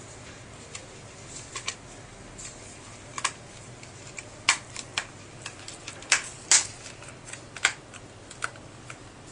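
Sharp, irregular clicks and snaps, about fifteen, some louder than others, from the 7-inch VIA WM8650 tablet's case clips snapping into place as its edges and corners are pressed together.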